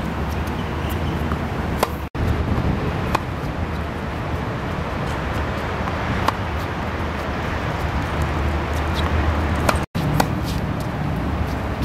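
Tennis racket strokes hitting the ball: a handful of sharp pops a few seconds apart over a steady low background rumble. The sound cuts out for an instant twice.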